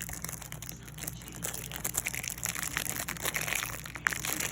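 Packaging rustling and crinkling with small irregular crackles as lash boxes are handled and opened.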